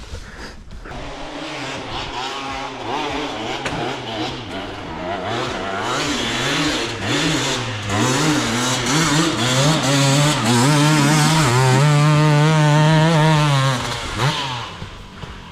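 KTM 450 SXF dirt bike's single-cylinder four-stroke engine revving up and down under load on a steep climb. It builds to loud, held high revs, then drops off sharply near the end.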